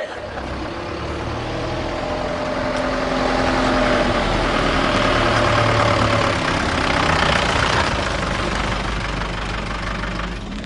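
A motor vehicle engine running steadily, swelling in loudness through the middle and easing off again.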